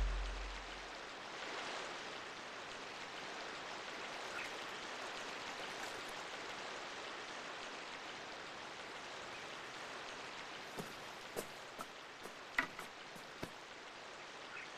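Shallow stream running over rocks, a steady rush of water. Near the end there are a handful of short, sharp clicks.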